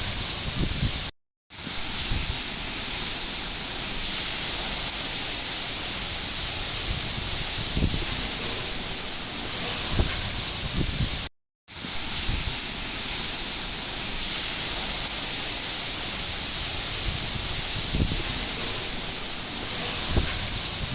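Steady rain, a dense hiss with a few heavier drops landing now and then. It cuts out to silence twice for a split second, about ten seconds apart, where the recording loops.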